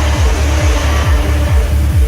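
Electronic dance music with a steady four-on-the-floor kick drum, a little over two beats a second, over a droning bass and held synth notes.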